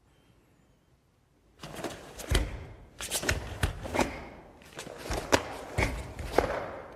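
Karate uniform snapping and bare feet stamping and sliding on a mat as a karateka strikes and steps through kata techniques. It begins about a second and a half in with a quick series of sharp snaps, several with low thuds under them.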